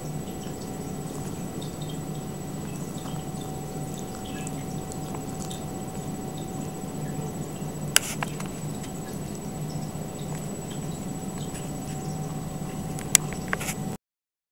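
Faint, scattered soft rustles and small clicks of young Ragdoll kittens squirming against each other on a blanket, over a steady low hum of room and recording noise. Two sharper clicks come about 8 and 13 seconds in, and the sound cuts off suddenly near the end.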